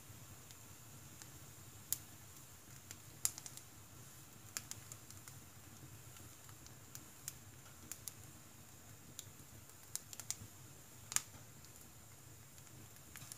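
Firewood crackling in a wood-burning stove: irregular sharp snaps and pops over a faint steady background, the loudest snaps about two and three seconds in and again near the end.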